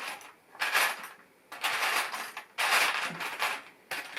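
Hard plastic LEGO parts rattling and clinking as they are handled, in four separate bursts of about a second each.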